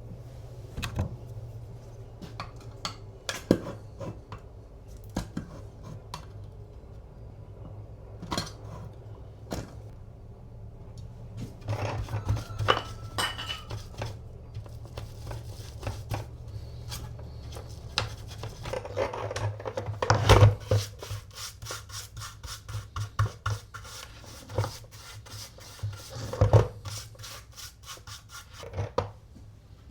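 A rag rubbing oil into the wooden body of an antique coffee grinder, with scattered knocks and clicks as the piece is handled and a quicker run of short rubbing strokes in the last third, over a steady low hum.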